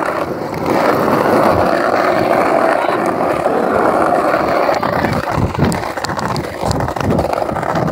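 Skateboard wheels rolling over rough asphalt: a steady grinding rumble, with a few low knocks in the second half.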